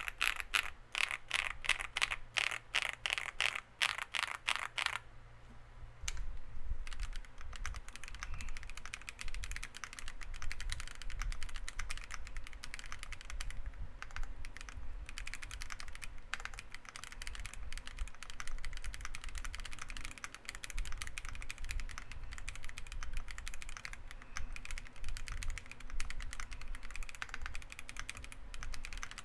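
Mechanical keyboard with factory-lubed Akko Cream Black Pro linear switches and PBT keycaps on a polycarbonate plate, being typed on. For about five seconds the keys are pressed at an even pace, about four a second; then, after a short pause, fast continuous typing starts about six seconds in.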